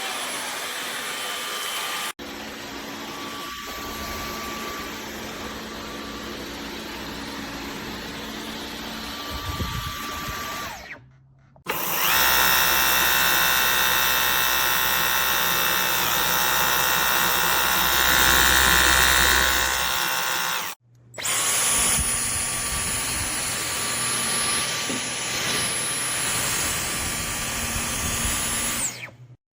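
Dyson V15 Detect cordless vacuum cleaner running steadily with a high whine, in several stretches that start and stop abruptly; the middle stretch is the loudest.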